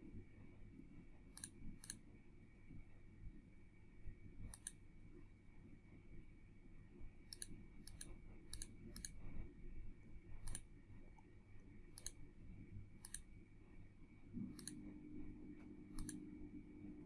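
Computer mouse clicking about fourteen times at irregular intervals, in clusters, over a faint low background hum.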